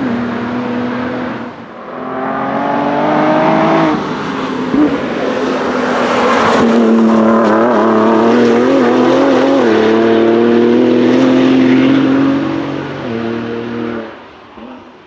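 2018 Ford GT's twin-turbocharged V6 pulling hard under throttle. The engine note rises in pitch about two seconds in and is loudest in the middle, wavering as the car drives past through a bend. It drops away sharply after about thirteen seconds.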